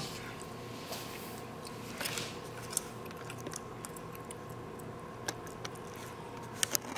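Quiet room tone with a steady low hum, broken by a few short, sharp clicks and taps.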